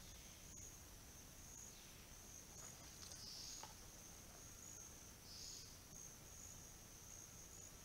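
Near silence: a faint, steady high-pitched insect drone with a few faint ticks.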